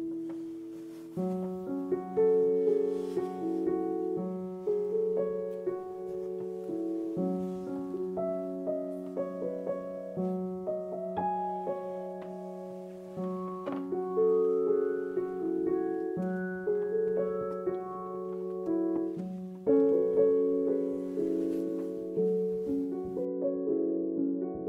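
Background piano music: a slow melody of struck notes, each fading away, over longer held low notes.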